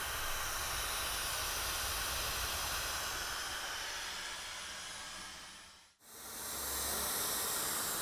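Dyson Supersonic hair dryer blowing, a steady rush of air with a faint high-pitched whine. It fades out about six seconds in and comes straight back.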